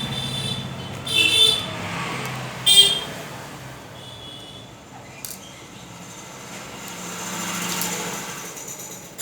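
Road traffic passing, with two short, high-pitched horn honks about one second and nearly three seconds in.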